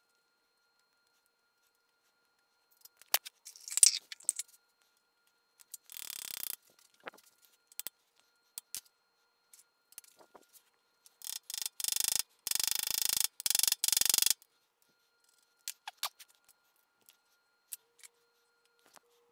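Light metal clicks, taps and scrapes as a hex key and a small lever handle are worked into a hub on a Bridgeport Series 1 milling machine's head. A denser run of rapid clicking and rattling comes about halfway through and lasts about three seconds.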